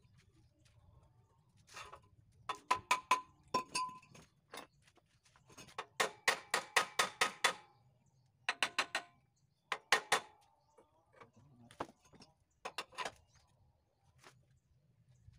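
Metal tools and parts clinking against a motorcycle frame during hand work on it: several short runs of sharp metallic clicks with a slight ring, the longest a quick run of about two seconds near the middle.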